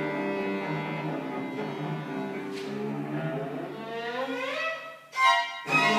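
String quartet of two violins, viola and cello playing sustained bowed notes. Upper strings slide upward near the end, then a brief break and a short accented chord.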